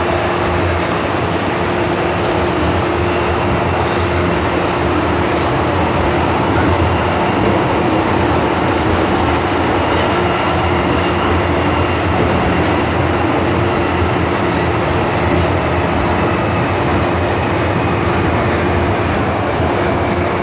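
MTR M-train electric multiple unit running through a tunnel, heard inside the car at the doors: a loud, steady rumble of wheels on rail. Over it a high whine slowly falls in pitch and fades out about three-quarters of the way through, as the train slows toward a station.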